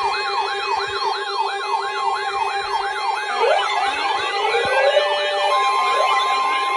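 Several electronic sirens sounding together: a fast yelp sweeping up and down about three times a second over a steady tone, with slower rising wails joining about midway and again near the end.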